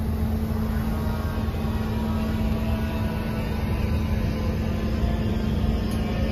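Steady machinery hum in a welding workshop: a constant low drone over a rumble, with no arc crackle of welding.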